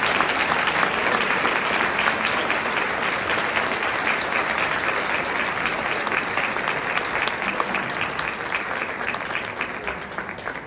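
Audience applauding, a dense, steady clapping that tapers off near the end.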